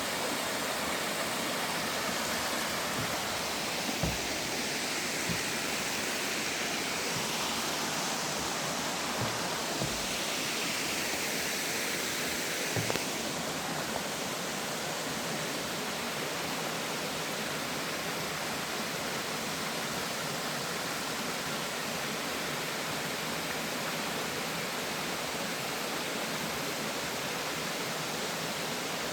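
Mountain stream water rushing steadily over rocks, with a few soft low thumps in the first half.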